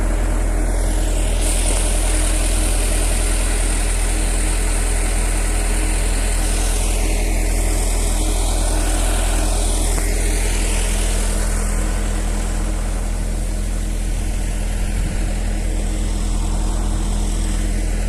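Case 580M backhoe's diesel engine running steadily with an even low hum.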